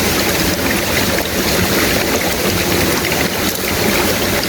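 Steady rushing of flowing stream water, an even noise that does not change.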